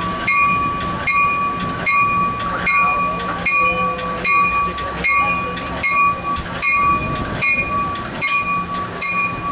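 Amtrak Pacific Surfliner's bell ringing steadily, about two strikes a second, over a steady low hum, as the train is given the highball to depart.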